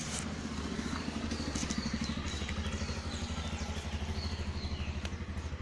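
An engine running steadily, with a fast, even low throb.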